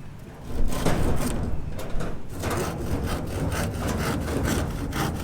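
Quick, even rasping strokes of a hand tool working a hard material, starting about half a second in and settling to about four strokes a second.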